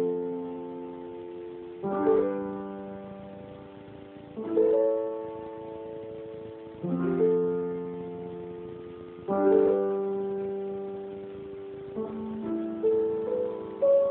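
Grand piano playing slow chords, a new chord struck about every two to two and a half seconds and left to ring and fade, with a few quicker notes near the end.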